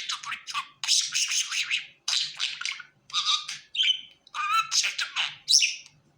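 Pet budgerigar chattering and warbling: a fast run of short chirps and squawks in quick bursts, broken by brief pauses.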